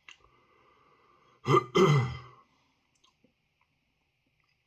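A man sighing aloud, a short voiced breath and then a longer sigh falling in pitch, about a second and a half in.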